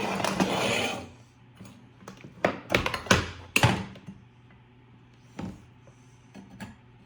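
A rustle for about the first second, then a few sharp knocks and clicks a couple of seconds in, with faint taps after. These are the parts of a skeleton animatronic's pole frame being handled and fitted together during assembly.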